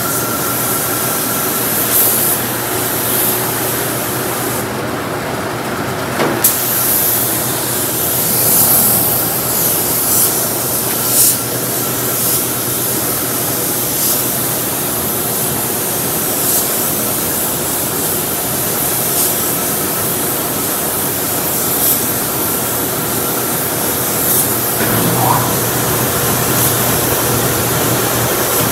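Eastwood gravity-feed spray gun hissing as it sprays epoxy primer, the hiss swelling with each pass. A steady low hum of shop fans runs underneath.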